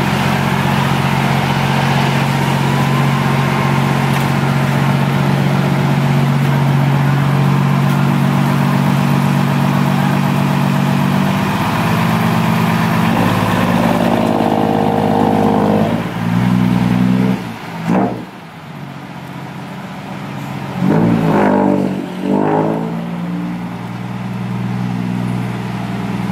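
Heavy diesel engine running steadily, then revving up and back down several times over the second half.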